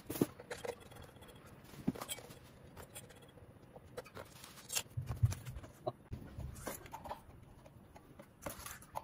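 Scattered light clicks and knocks of ceiling fan parts and screws being handled, with a few low thumps about five seconds in.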